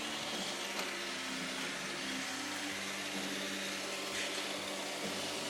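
iRobot Roomba 550 robot vacuum running, with a steady whir from its motor and brushes.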